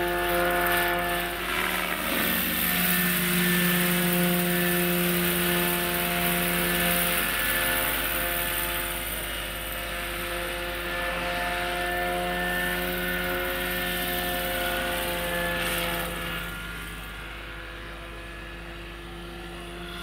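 Electric radio-controlled scale Bo-105 helicopter with a Hacker 12S motor flying overhead: the steady tone of its motor and rotors, drifting slightly in pitch as it moves, growing fainter about three-quarters of the way in as it flies away.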